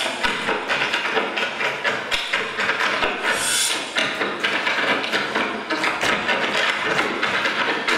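Fast percussive stage dance routine: a dense run of taps and thumps from the dancers' feet and a frame drum, with a bright shimmering burst about three and a half seconds in.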